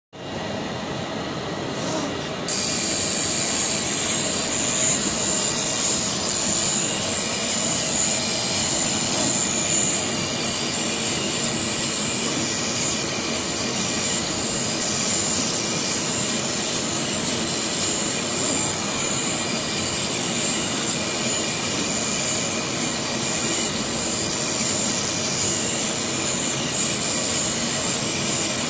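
CNC knife cutting machine running as its cutting head cuts leather: a steady mechanical hiss and whine with a high thin tone, stepping up in level about two seconds in.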